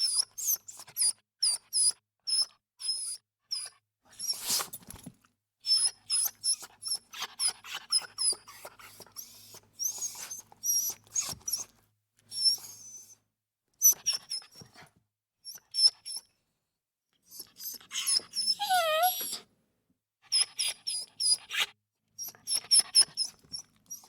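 Small dog whimpering: a series of short, high-pitched whimpers in clusters with brief pauses between them. About three quarters of the way through comes one longer, wavering whine that slides down in pitch.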